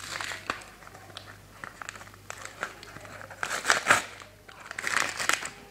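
A sticker packet's wrapper crinkling and tearing as it is opened by hand and the stickers are pulled out, in three bouts of rustling, the loudest about four seconds in.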